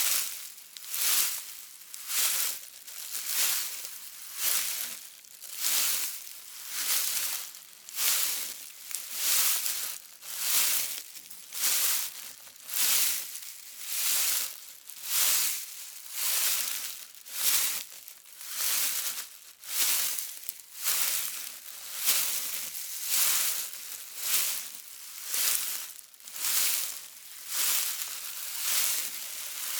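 Footsteps crunching through dry leaves at a steady walking pace, a little over one step a second, each step a crisp rustling crunch.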